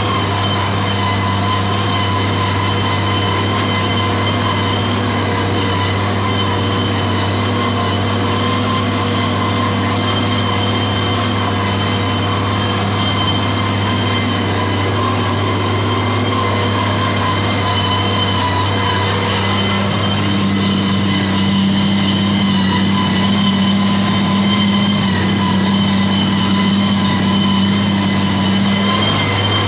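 Valtra 1780 tractor's diesel engine running steadily under heavy load while pulling a 14-disc, 34-inch heavy disc harrow through the soil, a deep drone with steady high-pitched metallic whines over it. The engine note grows a little stronger about two-thirds of the way through.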